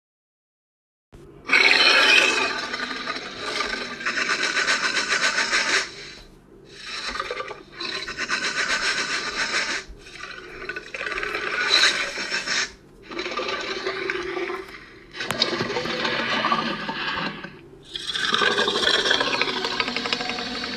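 A series of harsh rasping, scraping noises, each lasting one to three seconds, with short pauses between them.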